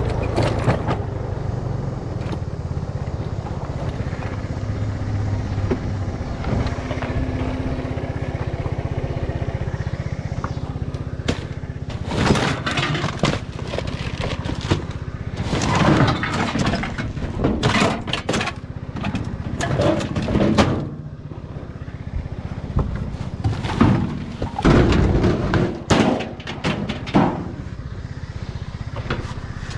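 Bundles of scrap copper wire being slapped and clattered, a string of sharp slaps from about eleven seconds in, over a steady low engine hum.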